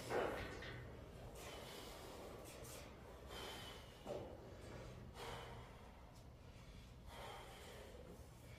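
A man breathing hard in a series of short, faint puffs a second or two apart, the strongest right at the start, from the effort of hauling on a hoist line.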